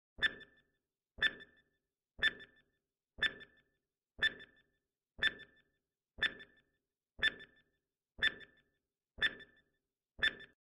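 Quiz countdown-timer sound effect: a short, sharp ping once a second, eleven in all, each ringing off briefly.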